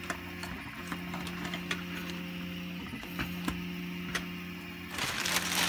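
Light clicks and knocks of 3D-printed plastic robot head parts being handled, over a steady hum that breaks off briefly a couple of times. Near the end a clear plastic bag of printed parts is picked up and crinkles loudly.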